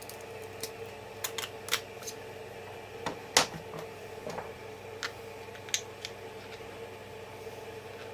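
Scattered clicks and taps of 3D-printed plastic tooling parts being handled and fitted, the loudest about three and a half seconds in, over a steady hum.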